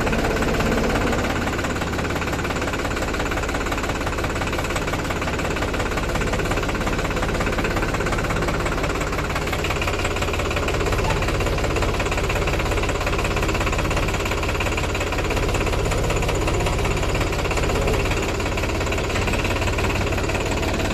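Tractor's diesel engine running steadily with an even clatter, heard from the driver's seat.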